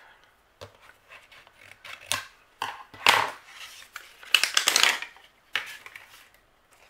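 Scissors cutting and clear plastic packaging crinkling as the wrapping is cut off a notebook. The sound comes in several short bursts, loudest about three seconds in and again around five seconds.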